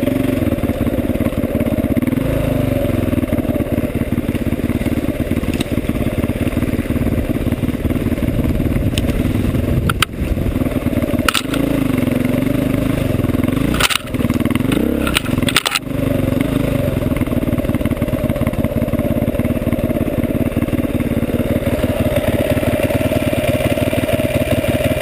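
Honda enduro motorcycle engine running while riding off-road, its pitch rising and falling with the throttle. A few sharp knocks with brief dips in level come around the middle.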